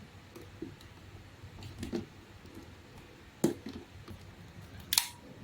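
A handful of sharp plastic clicks and knocks as the parts of a cordless handheld vacuum cleaner are handled, the loudest about three and a half and five seconds in; the motor is not running.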